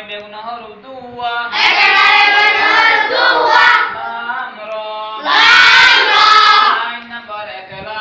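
A class of children chanting a Quran-reading drill in unison. Their chant swells loud twice, about a second and a half in and again about five seconds in, with quieter voicing between.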